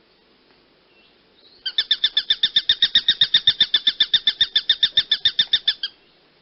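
A hawk giving a rapid chattering call: a long string of quick, evenly spaced, high notes, about ten a second, starting nearly two seconds in and lasting about four seconds.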